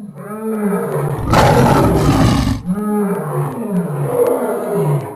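A lion roaring: pitched calls building to a harsh, noisy peak about a second in, then a string of shorter grunts that fall in pitch.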